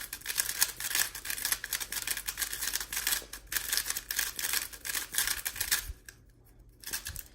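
A new GAN356 i speed cube being turned for the first time: a fast run of plastic clicks and scraping as its layers turn, which stops about six seconds in and picks up briefly near the end. The turning sounds very dry, as it does straight out of the box.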